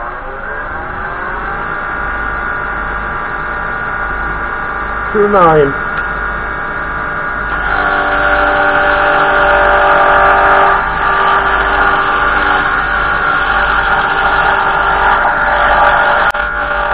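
Axminster 1628 wood lathe spinning a wooden dovetail pen blank on a mandrel, its motor whine rising for a moment, then holding steady at about 2700 rpm. A brief, loud falling squeal comes about five seconds in. From about seven and a half seconds a round negative-rake carbide cutter cuts the spinning blank, adding a louder, fuller cutting noise over the motor.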